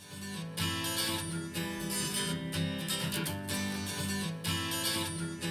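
A song's instrumental opening, strummed acoustic guitar chords, played back through a small budget desktop studio monitor and recorded in the room.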